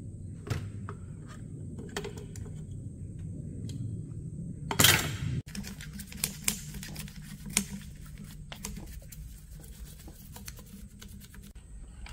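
Small metal clicks and taps of hand tools and parts working on the needle-bar mechanism of a vintage Singer sewing machine, over a steady low hum. There is one brief, loud hiss-like burst about five seconds in.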